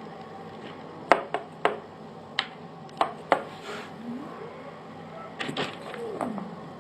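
A light plastic ping pong ball clicking and bouncing on a hard floor as kittens bat it about: six sharp taps in about two seconds, then another quick cluster near the end. Two short gliding whines, one rising and one falling, come between the taps.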